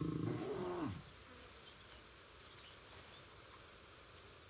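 A lion's low, pitched hum fades out with a falling pitch about a second in, leaving only a faint buzzing background.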